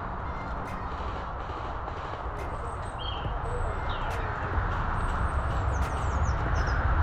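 Steady rustling and wind rumble on the microphone as a player moves along outdoors, growing slightly louder, with small birds chirping from about three seconds in and a few faint sharp clicks.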